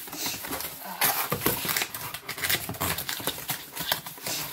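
Cardboard and paper packaging being handled and pulled open: irregular rustling and crinkling with quick clicks and scrapes as a book is unwrapped.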